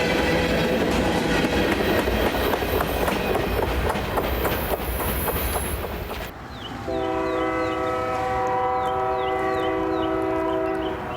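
Freight train rolling past, its wheels clattering over the rails. After a sudden cut about six seconds in, a diesel locomotive's air horn sounds one long chord of several notes over a quick repeated high ding.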